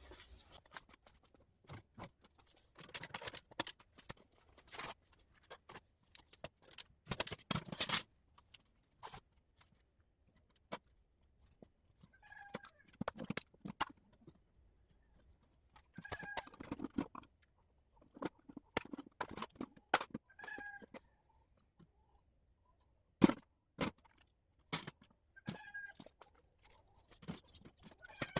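Scattered knocks and clatter of firewood being handled to lay a fire in a stove, with one sharp knock loudest near the end. A chicken clucks briefly every few seconds through the second half.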